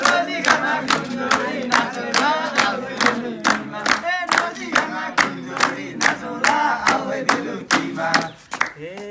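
A group of young men clapping hands in a steady rhythm, about three claps a second, keeping time for a Nepali dohori song, with crowd voices calling between the claps. The clapping thins out near the end.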